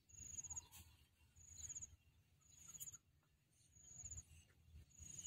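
Faint high-pitched insect chirping, with short trilled chirps repeating about once a second.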